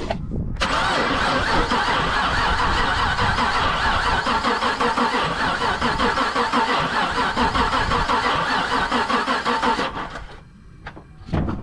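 2015 Camaro's 6.2-litre pushrod V8 turning over on the starter with the valve covers off: a steady, rapid churning that starts about half a second in and cuts off near the end. The engine has a failed valve lifter, and one exhaust valve on this bank is stuck and not moving at all.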